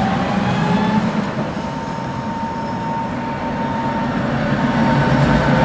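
Tatra T3 tram running past on street track: a low rumble of wheels on rails, with a thin whine that rises a little in the first second and then holds steady.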